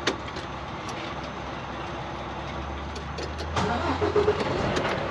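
Diesel engine of a 2022 Volvo VNL 760 semi-truck running at idle, heard from inside the cab. About three and a half seconds in, its sound grows louder and fuller as the truck pulls forward, with a few light clicks.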